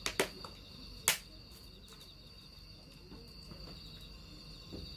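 Crickets trilling steadily at a high pitch, with two sharp clicks about a second apart near the start.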